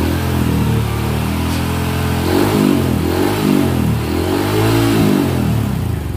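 Honda CRF150L's single-cylinder four-stroke engine revving through a Norifumi Noctus T3 aftermarket exhaust. It holds a raised idle, then is blipped up and down three times before easing back near the end.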